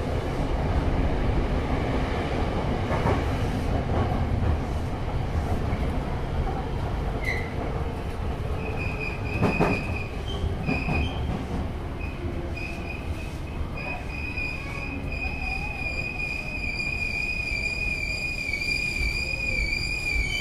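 Tokyo Metro 7000-series subway train running, heard from inside the car: a steady low rumble of wheels on rail. About halfway through a high metallic squeal from the wheels or brakes sets in, at first in short bursts and then held steady as the train pulls into a station.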